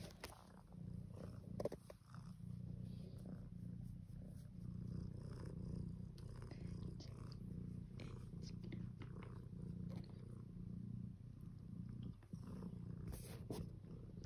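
Tabby cat purring steadily while being stroked, with occasional light rustling.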